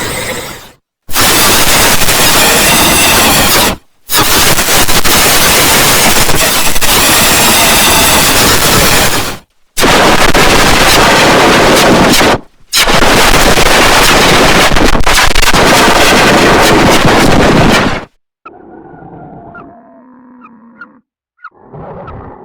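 Farm-animal sound effects so heavily distorted and clipped that they come out as harsh blasts of noise: four long blasts separated by short breaks. Near the end these give way to quieter, less distorted animal calls.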